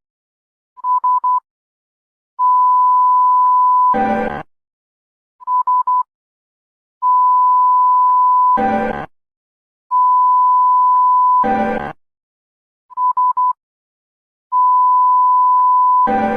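Emergency alert system alarm. A steady high beep of about a second and a half ends in a short harsh buzz, and this repeats four times. Quick groups of three short beeps fall in some of the gaps.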